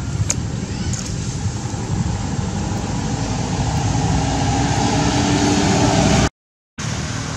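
A motor vehicle's engine running and slowly rising in pitch as it grows louder, then cut off abruptly for about half a second near the end before the sound resumes.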